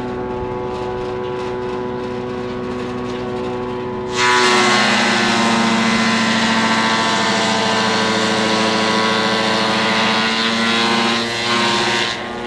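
Banana fibre extraction machine running steadily. About four seconds in, a loud harsh rasping noise starts suddenly and the machine's pitch drops slightly. The noise lasts about eight seconds and eases off near the end.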